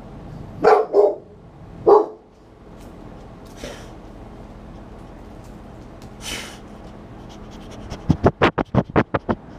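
Boxer dog giving three sharp alert barks in the first two seconds, guarding his yard. Near the end comes a quick run of about eight loud sniffs and snuffles right against the microphone as the dog noses the camera.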